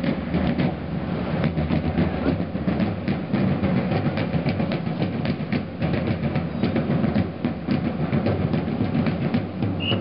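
Drum corps of field drums playing a steady marching cadence, with rapid, regularly repeating strokes.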